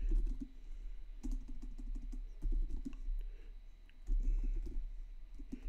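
Typing on a computer keyboard: quick runs of keystrokes in several short bursts with brief pauses between them.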